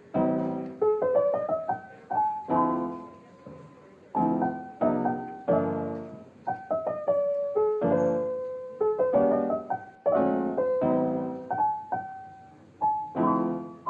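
Background piano music: chords and melody notes struck and left to ring out, in repeated phrases.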